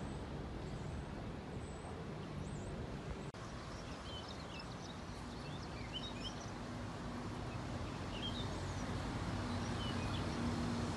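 Outdoor street ambience: an even background hiss, with small birds chirping in short high calls from about four seconds in, and a steady vehicle hum that grows louder near the end.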